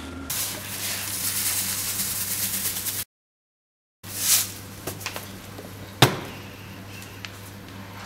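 A steady hiss of noise for about three seconds that cuts off into a second of dead silence. Then a brief whoosh and, about six seconds in, a single sharp knock, with a few faint clicks around it.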